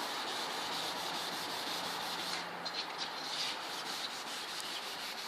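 400-grit wet sandpaper scrubbed by hand over a plastic car headlight lens: a steady, rapid scratchy rasp of quick back-and-forth strokes, briefly easing about halfway through. The sound is the yellowed, oxidised surface film being sanded off.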